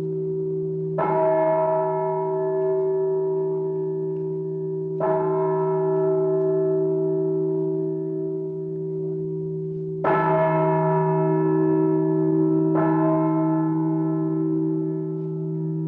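A bell tolled four times at uneven intervals, a few seconds apart. Each stroke rings on long and overlaps the last, leaving a steady hum underneath.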